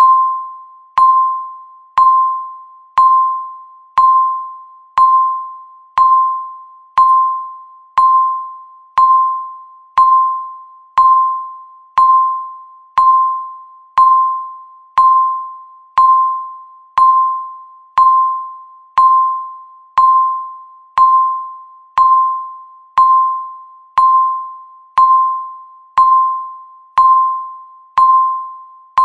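Countdown timer beeping once a second: a short electronic beep at one steady pitch with a sharp start that fades away before the next, marking each second left.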